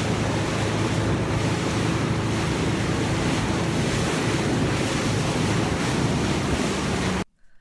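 Heavy wind buffeting the microphone aboard a moving motorboat, over a steady low engine hum and rushing water; the sound cuts off abruptly near the end.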